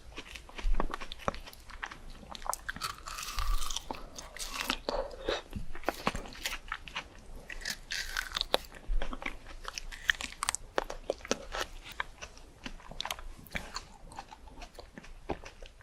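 A person biting into and chewing crunchy fresh fruit: irregular wet crunches and crackles, close to the microphone.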